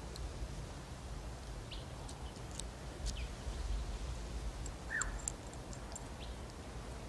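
Low steady background rumble with scattered faint clicks and one short falling chirp about five seconds in.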